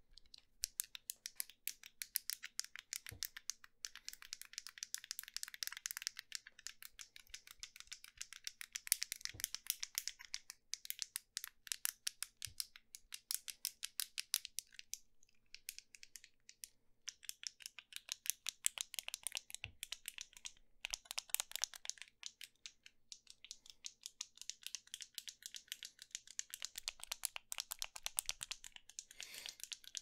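Fidget cube's push buttons being pressed rapidly close to the microphone: quick, crisp plastic clicks, several a second, with a couple of short pauses.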